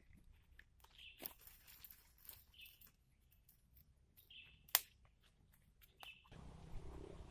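Quiet forest ambience: a bird gives short chirps every second or two, while light footsteps and sharp wooden clicks sound as sticks are handled on a small log frame, the loudest click about three quarters of the way through. Near the end a steady hiss comes in.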